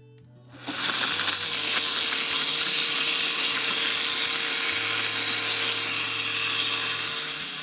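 Countertop blender switched on about half a second in, running steadily as it blends passion fruit juice with ice; it eases off slightly near the end.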